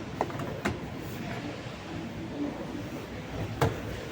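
Steady background din of a shop floor, broken by three short sharp knocks, the loudest near the end.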